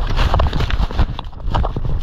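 Action camera tumbling inside a moving avalanche: a loud, irregular rumble of churning snow with rapid knocks and scrapes of snow against the camera.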